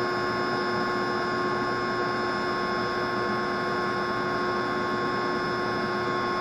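Steady hum of a pump running, with a few fixed tones held at an unchanging level.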